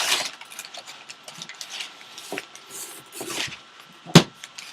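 Cardboard box and plastic packaging being handled, with scattered rustles and small clicks, then one sharp knock about four seconds in.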